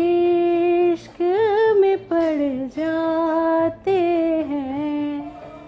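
A woman singing long, held notes with a wavering vibrato in four phrases over quiet backing music. The last phrase falls away about five seconds in.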